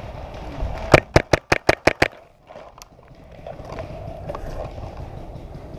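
Paintball marker firing a rapid string of about seven shots, roughly six a second, about a second in.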